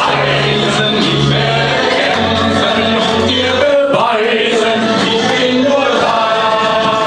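A group of men singing a song together, amateur-style, over backing music with a plodding bass line.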